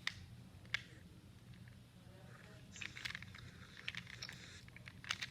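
Faint scattered clicks and taps, like objects being handled, over a low steady hum.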